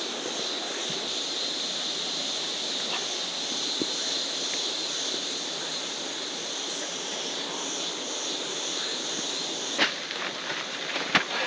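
Waterfall: a steady rush of falling water, with a few sharp knocks near the end.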